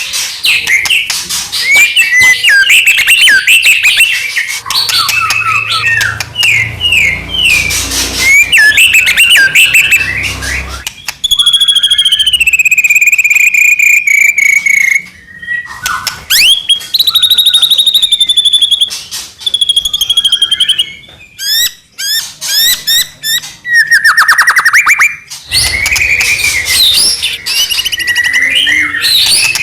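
White-rumped shama (murai batu) singing loudly and continuously: a fast, varied run of clear whistles, rapid trills and slurred glides, broken by a few short pauses.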